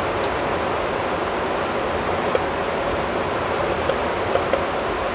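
Hot cooking water from boiled ackee pouring out of a steel pot through a plastic strainer into a stainless steel sink: a steady splashing rush, with a few light clinks along the way.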